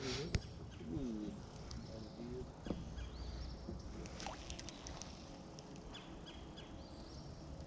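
Quiet outdoor ambience on a small fishing boat: scattered light knocks and clicks from gear and the hull, with faint bird chirps.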